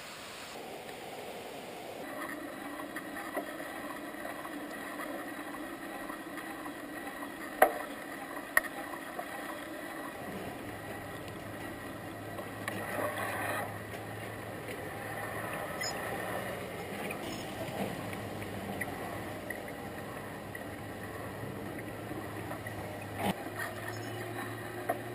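Steady mechanical hum of running vehicle engines, with a deeper hum joining about ten seconds in and two sharp knocks about eight seconds in.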